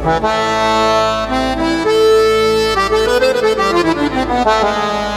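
Arabic-style accordion voice on a Yamaha PSR-A5000 keyboard playing a melody of short notes over a held low drone, with a longer held note about two seconds in and a quick falling run of notes after it.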